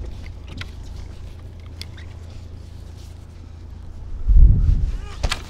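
Fishing boat's engine giving a low, steady drone, with a few light clicks. About four seconds in there is a brief, heavy low rumble, the loudest sound here, followed by a sharp click.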